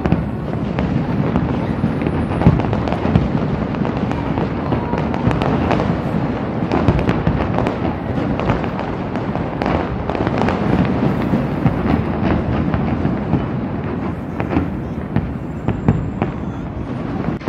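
Aerial fireworks going off in a continuous barrage: many sharp bangs and crackles over a steady rumble.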